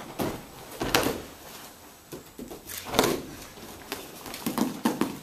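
Thuds of bodies hitting a padded martial-arts mat as partners are thrown: two loud impacts about a second and three seconds in, with lighter thumps near the end.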